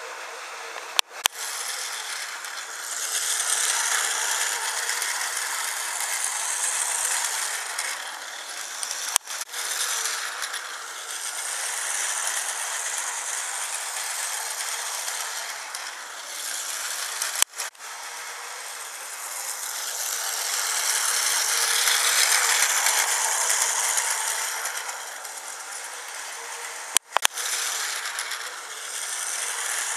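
Battery-powered Plarail toy high-speed train running on plastic track, its small motor and gears whirring and rattling, growing louder and fading again as it passes close by and moves away. A sharp click cuts in four times, about every eight seconds.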